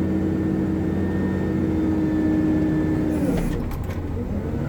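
Hitachi 370 wheel loader's diesel engine working under load with a steady drone. It drops off about three seconds in, with a few clicks, then picks back up near the end.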